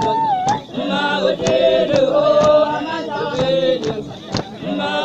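Bale, Basotho female initiates, singing a chant together in several held, overlapping voice parts, with sharp percussive beats roughly every half second. A high held note dips and cuts off about half a second in.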